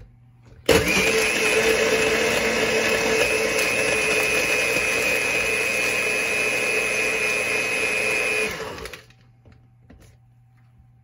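Personal bullet-style blender running, crushing ice with lemonade and vodka into a thick slush. It starts abruptly about a second in, runs steadily for about eight seconds with a steady high whine, and winds down near the end.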